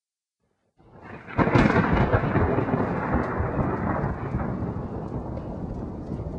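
A loud rumbling crash: after a moment of silence it swells, breaks sharply about a second and a half in, then rolls on and slowly fades.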